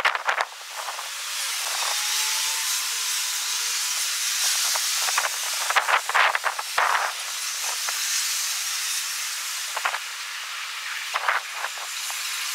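Strong wind buffeting an outdoor microphone: a steady high hiss with bursts of crackling near the start, about six seconds in and again near the end.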